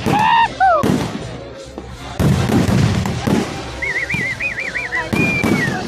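Fireworks going off in dense crackling bangs. A high warbling whistle comes about four seconds in, and a falling whistle near the end.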